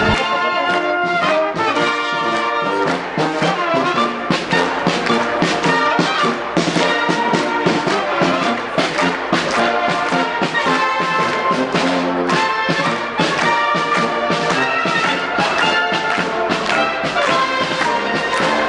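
Music led by brass instruments, trumpets and trombones over an orchestra, with a steady rhythmic pulse.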